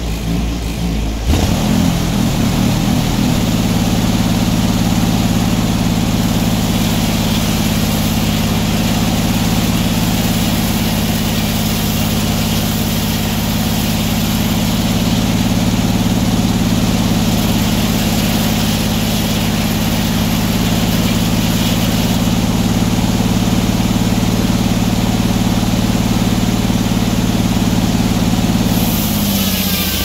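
Large circular head saw of a sawmill, engine driven, cutting through a square timber on the carriage. The blade bites into the wood about a second in and then runs steadily under load. Near the end the drive's pitch drops as the cut finishes.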